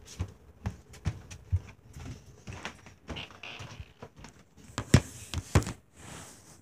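Irregular knocks, bumps and rustles of a phone being handled and moved, with two louder knocks about five seconds in.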